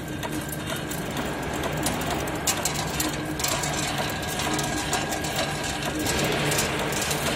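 Chain link fence weaving machine running: a steady mechanical clatter of many small rapid clicks, with a faint steady high whine.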